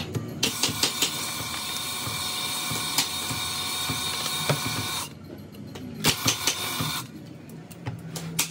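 Portable cylinder boring machine running with its bar in a bore of a three-cylinder Fiat tractor engine block: a steady, high machine whine for about four and a half seconds that stops abruptly. A few clicks follow, then a brief second run near the end.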